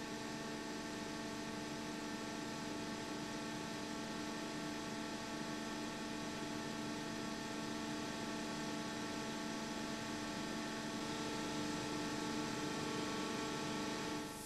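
Steady hum made of several held tones over a faint hiss, with no clear change apart from a slight swell near the end.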